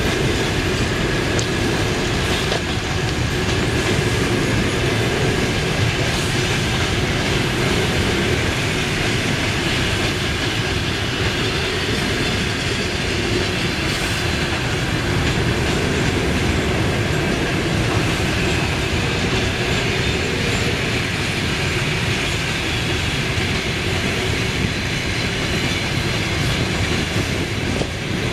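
Passenger coaches of a long train rolling past at speed: a steady rumble and rattle of steel wheels on the rails that keeps on without a break.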